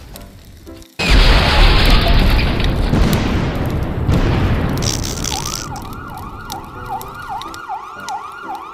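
Cartoon sound effects: a sudden loud explosion about a second in, its rumbling noise fading over the next few seconds, then an emergency siren wailing rapidly up and down, two to three sweeps a second.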